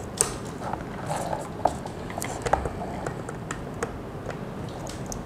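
RJ45 Ethernet plugs being pushed into the ports of a PoE switch. Cable handling against the plastic enclosure makes a string of small, sharp clicks and knocks.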